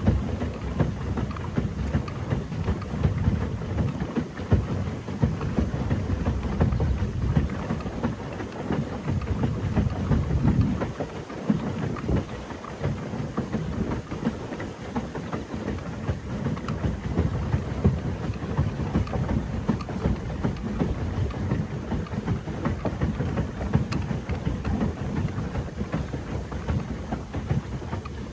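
Gusting low rumble of wind on the microphone over water splashing as a pedal boat is pedalled along, with a short lull about 11 seconds in.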